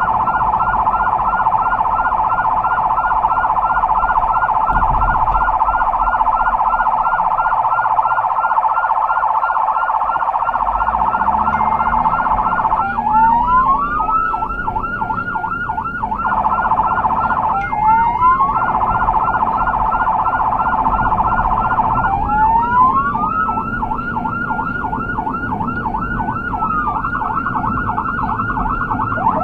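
Emergency vehicle's electronic siren on a fast yelp, broken three times by a slower rising sweep before the yelp picks up again, and changing to a different rapid tone near the end. A vehicle's engine and road rumble run low underneath.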